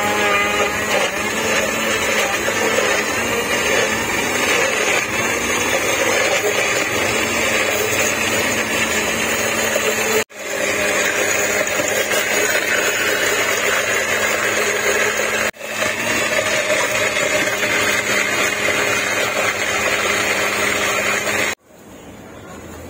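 Electric blender motor running steadily as it blends a fruit smoothie. It cuts off abruptly twice and starts again at once, then stops near the end.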